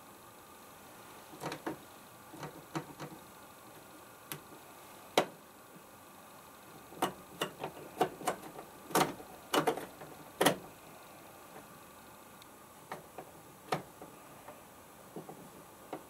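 Rotary programme selector knob of a Pro Action A105QW washing machine being turned, clicking through its detents: an uneven run of sharp clicks, thickest in the middle, over a faint steady hiss.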